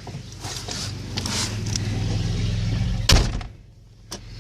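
Pickup truck engine idling with a low, steady hum. A truck door slams shut about three seconds in, followed by a lighter click near the end.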